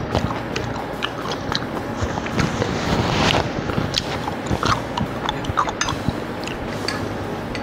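A person chewing food close to a clip-on microphone: a run of small smacking mouth clicks, with a short rush of noise about three seconds in.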